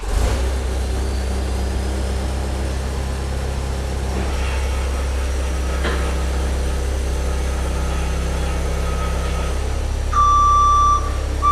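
Cat 272C skid steer's diesel engine idling steadily. A high electronic warning tone sounds twice near the end.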